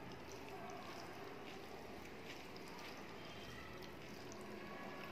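Fingers mixing rice with hilsa fish curry on a plate: faint wet squishing with small scattered ticks.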